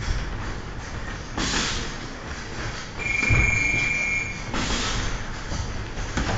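Boxing sparring: shuffling footwork on the ring canvas and dull thuds of gloved punches, with a few short rushes of noise. About three seconds in, a steady high squeak lasts about a second and a half.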